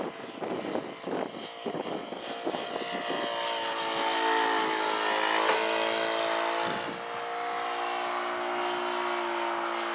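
Radio-controlled model airplane's motor running with a steady pitched drone. Irregular knocks and clatter come first, and the drone settles in about three seconds in.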